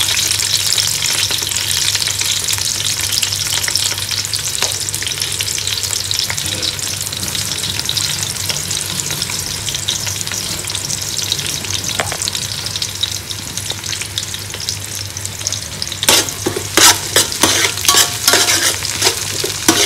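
Sliced onions sizzling in hot coconut oil and vegetable oil with whole spices in an aluminium pot, a steady hiss over a low hum; they are to be fried only lightly, not browned. From about 16 seconds in, a metal spoon stirs them, clicking and scraping against the pot.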